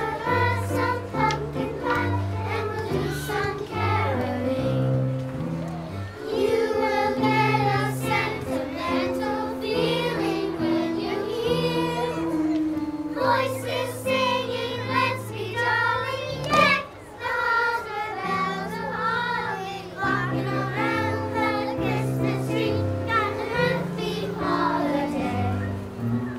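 Choir singing with instrumental accompaniment, over a bass line that moves note by note.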